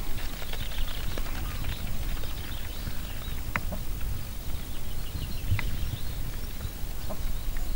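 Wind buffeting the microphone as a steady, uneven low rumble, with a few faint high chirps and light clicks.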